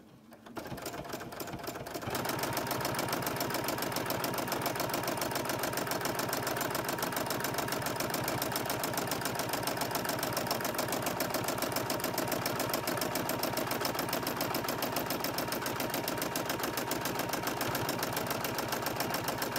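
Electric sewing machine stitching steadily, free-motion stitching around an appliqué edge: it starts slowly and faintly, then picks up to a fast, even stitching rhythm about two seconds in.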